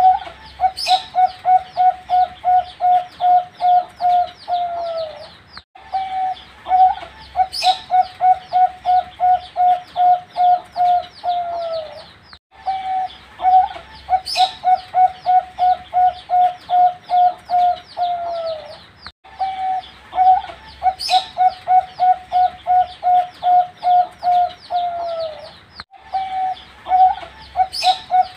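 Young zebra dove (perkutut of the Bangkok song line) singing its cooing song about five times. Each phrase is an opening note, a quick run of about a dozen short even coos, and a falling note at the end, repeated about every seven seconds.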